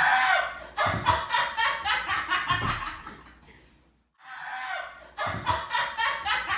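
Laughter in two bouts of quick repeated 'ha' pulses, with a short near-silent break between them a little past the middle.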